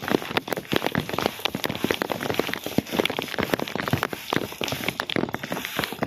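Rain falling: dense, irregular tapping of drops over a steady hiss.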